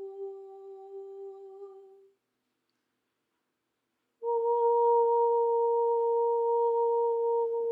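A steady, sustained hummed tone fades out about two seconds in. After two seconds of silence, a second, higher held tone starts abruptly and stays steady.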